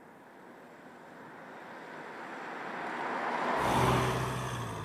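Volkswagen T-Cross driving past on asphalt: tyre noise grows steadily louder as it approaches and peaks as it goes by near the end. A low, steady engine hum comes in abruptly about three and a half seconds in.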